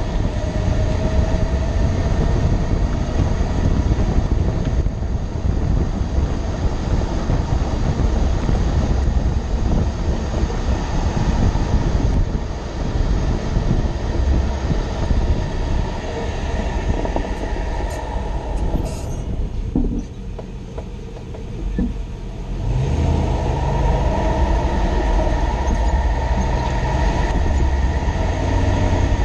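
2006 Toyota Tundra pickup driving: a steady low rumble of road and engine noise, which drops for a couple of seconds about twenty seconds in and then picks up again.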